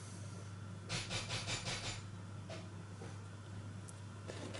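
Building work going on elsewhere in the house: a quick run of rasping strokes lasting about a second, then a single click, over a steady low hum.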